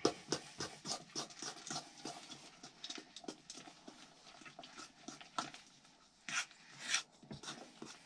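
Thick banana bread batter stirred by hand in a stainless steel mixing bowl: a run of short scraping strokes, about three a second at first, then sparser. Two louder hissing bursts near the end.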